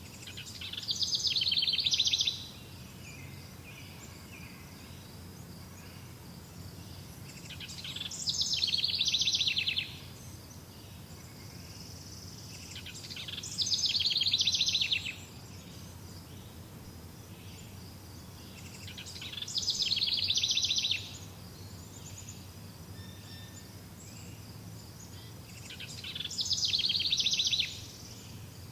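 A songbird repeating the same rapid, high trilled song phrase five times, about every six seconds. Each phrase lasts about two seconds, grows louder and ends abruptly. A steady low background rumble runs underneath.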